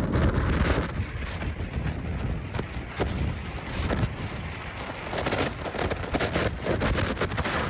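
Strong gusting wind buffeting the microphone, with a dense crackle of short sharp clicks over it.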